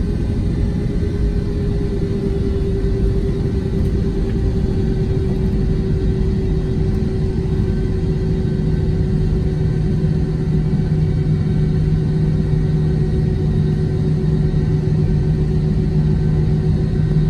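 Airbus A321 airliner heard from inside the cabin beside its wing-mounted engine while taxiing onto the runway: a steady low rumble with an engine hum. A second, lower hum comes in about halfway through.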